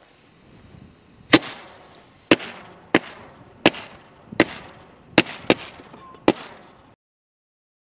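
Firework cake (barrage) firing: a hiss, then eight sharp bangs at uneven intervals of about a second or less, with a crackling hiss between shots. The sound cuts off abruptly near the end.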